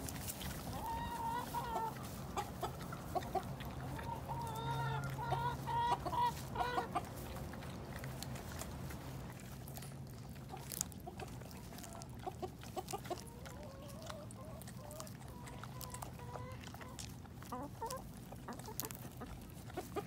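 Domestic hens clucking on and off in two spells, the second in the latter half, over a faint low steady hum.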